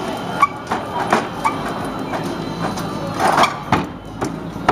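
Trials bicycle hopping and landing on a steel platform and ramp: a series of sharp knocks and clanks as the wheels come down, with a few short squeaks in between.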